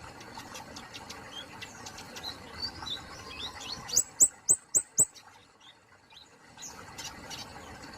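Kemade polos songbird singing: a run of quick varied twittering notes, then about four seconds in, four loud, sharp, rising notes in quick succession, followed by softer scattered calls.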